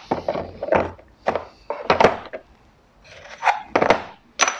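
Irregular knocks and clatter of metal tools and parts being picked up and set down on a wooden workbench, about eight sharp knocks with short pauses between them.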